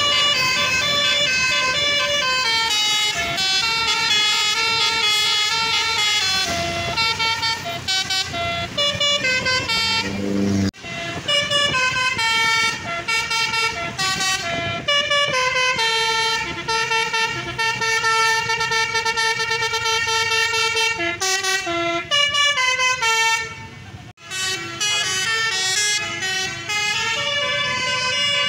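A bus's multi-tone air horn (an Indonesian "telolet"/basuri horn) playing a melody, its notes stepping up and down every fraction of a second. It breaks off abruptly twice and resumes.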